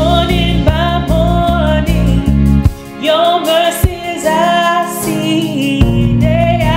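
A woman singing a gospel worship song over instrumental accompaniment. The deep bass drops out for about three seconds midway, then comes back.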